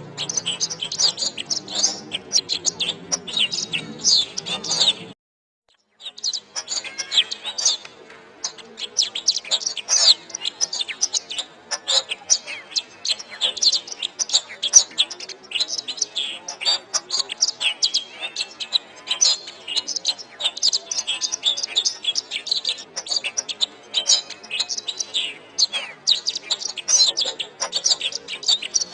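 Domestic canary singing a rapid, continuous song of high chirps and trills. The sound cuts out completely for about a second around five seconds in, then the song resumes; a low steady hum sits under the first few seconds.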